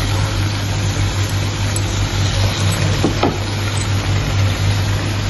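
Chicken curry with chopped coriander sizzling steadily in a steel kadhai over the burner, with a constant low hum underneath.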